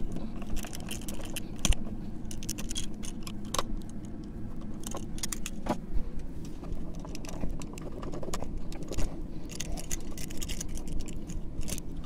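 Scattered light clicks and metal clinks of old three-way light switches and their wires being handled and pulled free of plastic electrical boxes.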